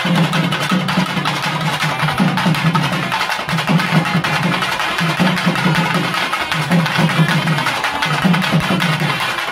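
Neyyandi melam ensemble playing: thavil drums beat fast, dense rhythms while nadaswaram reed pipes play a melody in sustained phrases.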